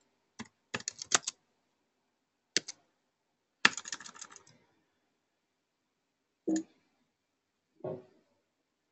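Computer keyboard being typed on: a few scattered keystrokes, then a quick run of several keys about four seconds in. Near the end come two single, duller knocks.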